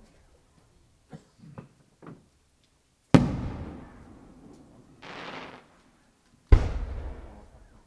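Fireworks going off: two sharp, loud bangs about three and a half seconds apart, each trailing off in a long rumbling echo. Faint pops come in the first two seconds, and a short hiss comes about five seconds in.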